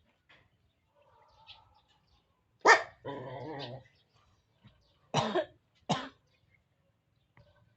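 An animal gives three short, sharp barking calls, the first and loudest followed at once by a longer, lower drawn-out call.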